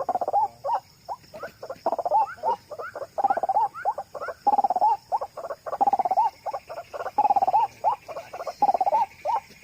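White-breasted waterhen calling: fast runs of harsh, repeated 'wak' notes in bursts of about a second, separated by short pauses.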